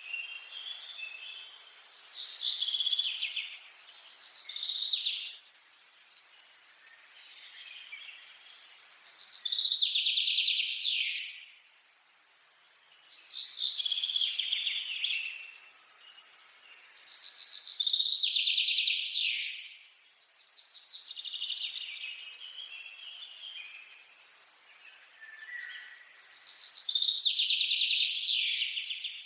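A songbird singing a repeated phrase of rapid high notes, often ending in a quick downward sweep, each phrase lasting two to three seconds and coming back about every four seconds.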